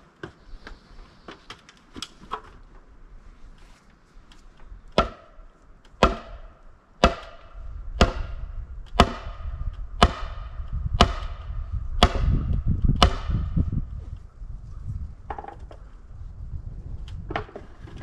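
Hammer blows on the top of a wooden post, forcing a too-tight fit: a few light taps, then nine sharp strikes about one a second, each ringing briefly. A low rumble runs under the later strikes.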